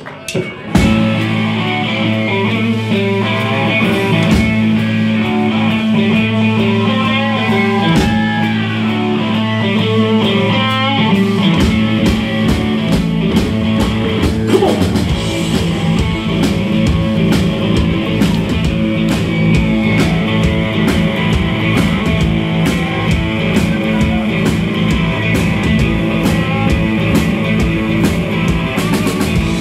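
Live blues-rock band opening a song on electric guitar, bass guitar and drum kit. The held low notes give way to a busier, driving bass-and-drum rhythm about twelve seconds in.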